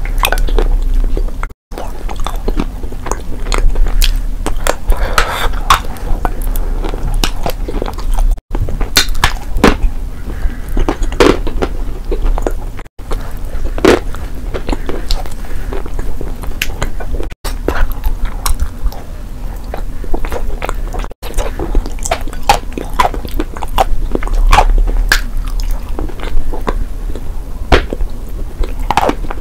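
Close-miked biting and chewing of edible chalk and clay paste: irregular crunches and wet mouth sounds, cut by a few very short silent breaks.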